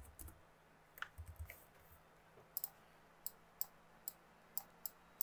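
Computer mouse clicking: a few sharp clicks at the start, then a run of about seven clicks over the last few seconds.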